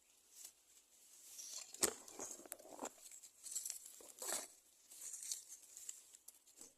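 Faint rustling and crinkling in short bouts, with a sharp click about two seconds in.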